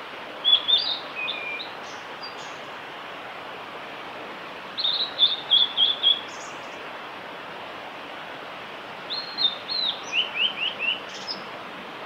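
Male blue-and-white flycatcher singing: three short phrases of clear whistled notes a few seconds apart, the last ending in a quick run of lower, falling notes, over a steady background hiss.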